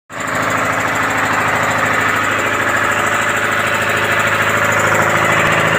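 Newly repaired Detroit Diesel two-stroke diesel engine running steadily.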